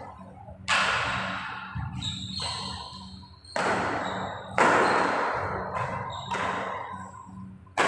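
Badminton rackets striking the shuttlecock in a rally: a string of sharp smacks about a second apart, each ringing out in the echo of a large hall. A steady low hum runs underneath.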